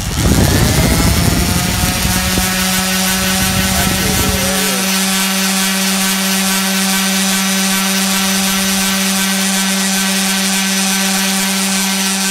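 Orbital sander running at full speed. For about the first four and a half seconds its pad rounds the corner of a wooden paint-stick shim with a rough grinding rasp, then it spins freely with a steady whine. Right at the end it starts to wind down.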